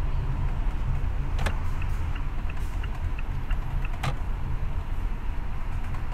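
Car driving, a steady low rumble of engine and road noise heard from inside the cabin. Two sharp clicks land about two and a half seconds apart, with a run of faint, quick ticks between them.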